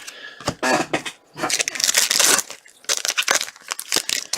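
Plastic trading-card pack wrapper crinkling and tearing as a pack of hockey cards is opened and handled, in irregular rustles with the loudest stretch about a second and a half in. A brief vocal sound comes just before it.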